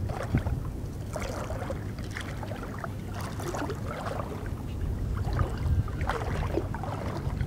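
Wind rumbling on the camera's built-in microphone, with small splashes and trickles of shallow lagoon water lapping close by.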